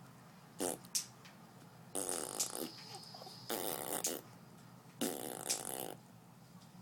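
Imitation fart sounds: two short blips, then three buzzy, drawn-out fart noises of about half a second each, a second or so apart.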